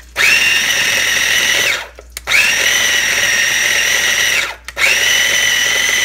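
Small electric mini food processor run in three short pulses, chopping frozen grated coconut, green chillies and cilantro dry before any water is added. Each run is a steady motor whine that rises as it spins up, the first two lasting about two seconds and falling away as they stop, with short breaks between.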